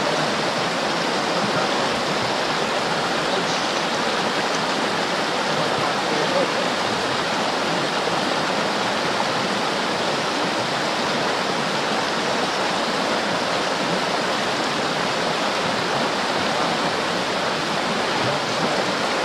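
A mountain creek rushing steadily over rocks and small rapids: an even, constant rush of running water.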